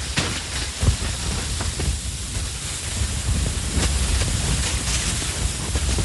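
Large snow avalanche: a continuous deep rumble under a dense hiss of sliding snow, with many small crackles and one sharper knock about a second in.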